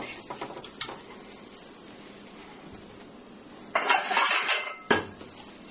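Spatula working in a nonstick frying pan on the stove, with light scrapes and clicks against the pan. About four seconds in comes a louder scraping rustle lasting about a second, then a sharp clack.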